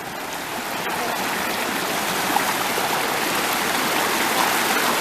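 Waterfall rushing: a steady roar of falling water that grows louder over the first couple of seconds, then holds.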